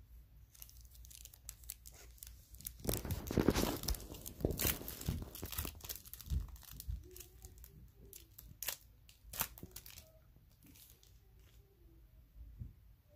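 A trading-card pack's wrapper being torn open: a burst of ripping and crinkling about three seconds in, then lighter crinkles and clicks as the wrapper and cards are handled.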